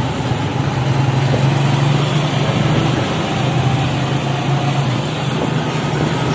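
Motorcycle engine running steadily while riding, its low hum shifting a little in pitch, under a steady rush of road and wind noise.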